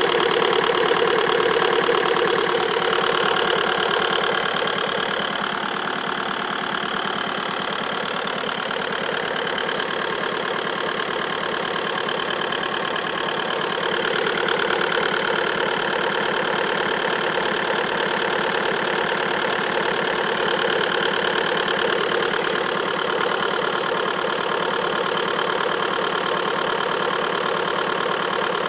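Car engine idling, with a fast, even pulsing noise through the running that the owner finds strange and can't explain. It drops a little about five seconds in and rises again about halfway through.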